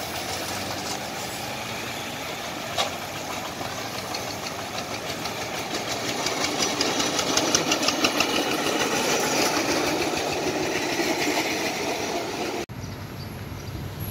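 Diesel rail vehicle's engine running with a rhythmic knock as it passes close to the crossing. It grows louder to a peak about seven or eight seconds in, then fades. There is a single sharp clack about three seconds in, and the sound cuts abruptly to something quieter near the end.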